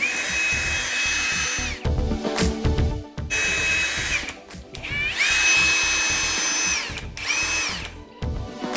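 Ryobi 18V ONE+ HP brushless compact hammer drill (RPD18) run four times in short bursts, each a steady high whine; the third winds up in pitch as it starts. Background music plays underneath.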